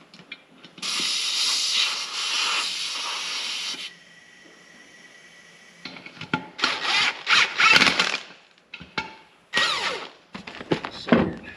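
Compressed air hissing from an air hose into a bushhog tire's inner tube for about three seconds, then a fainter hiss. From about six seconds in comes a run of irregular scrapes and squeaks of rubber as the tube and tire are worked onto the rim by hand.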